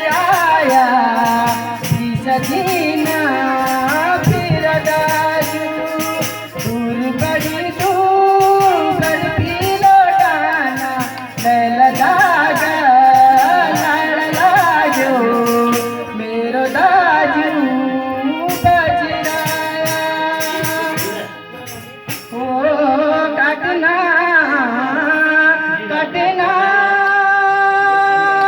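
Kumaoni folk song sung solo with melodic ornaments, over rattling hand percussion that drops out for a few seconds past the middle and then returns briefly. The song ends on a long held note.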